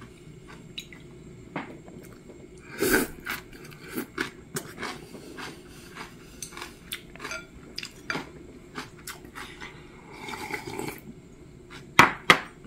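A man eating spicy mixed noodles: chewing with wet mouth noises, and wooden chopsticks clicking and scraping against the bowl in many short ticks. There is a louder noisy burst about three seconds in, and a sharp clatter of chopsticks on the bowl near the end.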